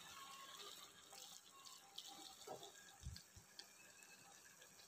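Near silence: a ladle stirring and lifting cooked pasta in an open pressure cooker, heard only as faint soft clicks and scrapes, with two dull low knocks about three seconds in.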